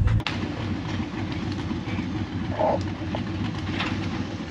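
An off-road vehicle's engine running, a low uneven rumble, with a sharp click about a quarter-second in where the sound changes.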